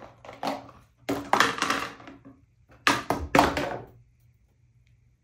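A plastic tray scraping and knocking on a stone countertop as a parrot pushes it about, in three bouts, the last two about a second long each.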